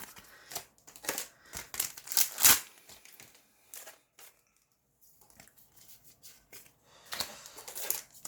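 Yu-Gi-Oh! booster pack foil wrappers crinkling and tearing open in hand, in irregular sharp crackles with a short quiet pause midway.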